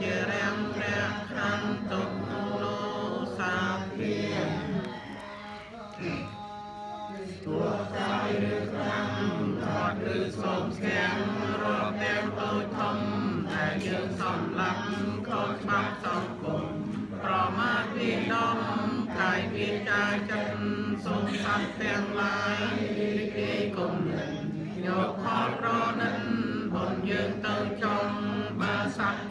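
A small group of Buddhist lay worshippers chanting together in unison over a steady held pitch. The chant dips briefly about five seconds in, then carries on.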